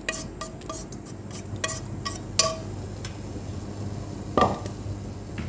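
A utensil scraping and tapping against a metal frying pan as stir-fried chicken giblets are knocked out of it into a pot: a quick run of clicks, each ringing briefly, then one louder knock about four seconds in.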